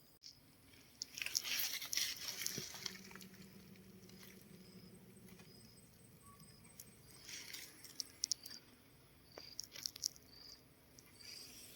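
Insects chirping in a steady repeating pulse, with faint intermittent rustling and crunching a few times.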